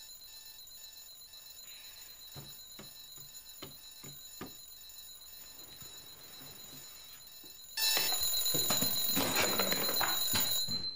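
Alarm clocks going off: an alarm clock beeping in quick, even repeats, with a few soft knocks, then about eight seconds in a much louder ringing alarm starts up and keeps going.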